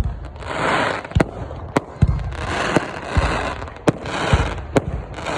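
Fireworks going off: a steady run of sharp bangs, roughly one to two a second, with sputtering crackle from the bursts in between.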